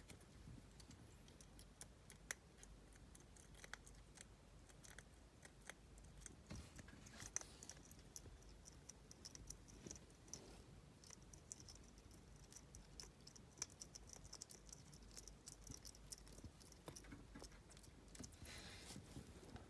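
Faint, irregular clicks and light scratching from a pet hedgehog moving close up, with a short breathy hiss near the end.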